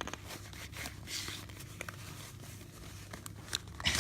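Rustling, crinkling and light clicks of an item being handled and brought out, over a steady low hum.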